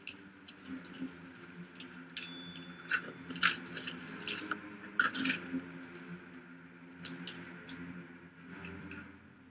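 A low steady hum in a small room, with scattered light clicks and taps of small objects being handled.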